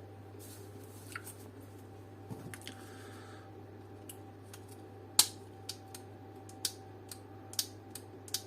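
Small plastic clicks and snaps, a few light ones at first, then a string of sharper ones from about five seconds in, as the switch buttons are pressed back into a Hella dome light's plastic housing, over a faint steady hum.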